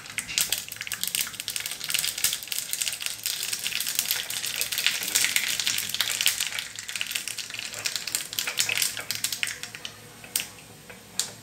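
Mustard seeds spluttering in hot coconut oil in a small tempering pan: a dense crackle of pops that thins to a few scattered pops near the end, as the seeds finish bursting.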